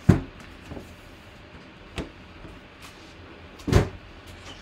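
Cardboard boxes handled and set down on a table, giving three dull knocks: a sharp one at the start, a lighter one about two seconds in, and a heavier one near the end.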